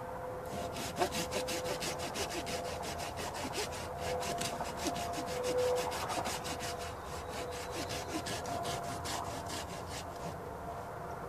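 Hand saw cutting through wood with quick, even back-and-forth strokes. The strokes stop about a second before the end.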